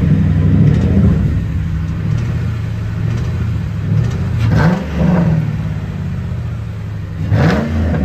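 2000 Ford Mustang GT's 4.6-litre V8 idling, revved briefly twice, a little over four seconds in and near the end, the pitch rising and falling each time. The owner suspects a lifter tick.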